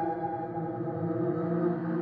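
Horror sound-effect drone: several steady, layered tones held without a break, with a gong-like, ringing quality.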